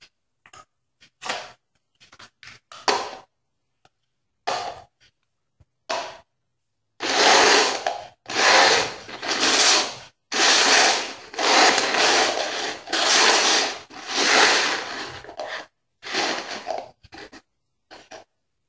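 Three upside-down plastic cups being shuffled across a tiled floor in a shell game: a run of about eight scraping slides, each about a second long, after a first half of scattered light taps and clicks.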